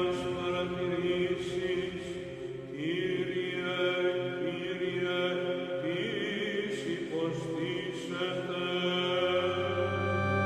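Background music: layered sustained tones with a chant-like, droning character.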